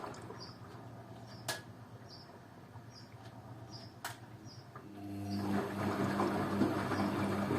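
Beko washing machine in a synthetics 50 °C wash: the drum motor stops and the drum rests for about five seconds, with two sharp clicks, then the motor starts again with a rising hum. This is the drum's pause between tumbling turns.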